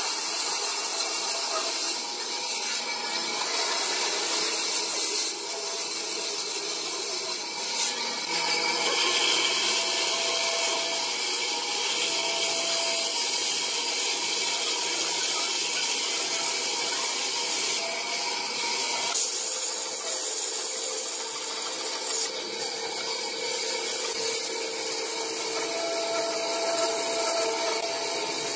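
Band saw running and cutting a curve through a thick softwood block: a steady, bright sawing noise of the blade in the wood.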